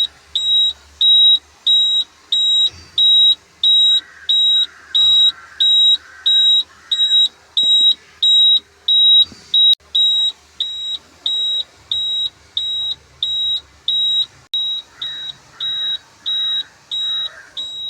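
Electronic warning buzzer beeping steadily at a high pitch, about two short beeps a second, over a faint low hum.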